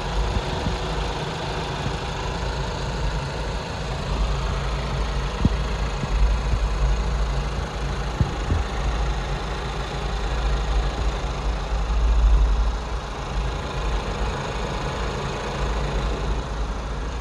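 Chevrolet Malibu's 1.5-litre turbocharged Ecotec four-cylinder idling steadily, heard close from above the open engine bay; it purrs like a kitten, a smooth, healthy idle.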